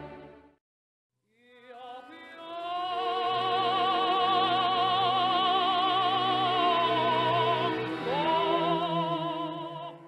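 Operatic soprano voice from a recording singing a long held F♯4 in clear head voice with a wide, even vibrato, then moving to another note near the end. A brief silence comes about half a second in, before the note begins.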